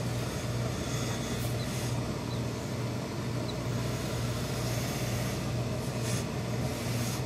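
Steady low machine hum from tailoring pressing equipment, with the soft sliding of a heavy steam iron being pushed over wool suit cloth.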